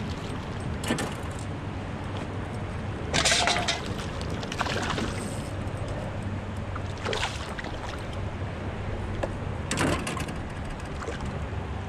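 Several splashes at the water's surface from a hooked bass being pulled to hand, the loudest about three seconds in and others near five, seven and ten seconds. Under them runs the steady rush of river current with a low hum.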